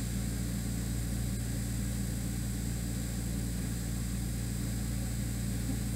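Window air conditioner running, a steady low hum with an even airy hiss.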